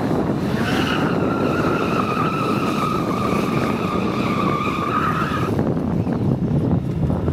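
Stunt motorcycle's tyre squealing on asphalt for about five seconds during a stoppie-style trick, a steady high squeal that starts about a second in and cuts off near the end, over the sport bike's engine running.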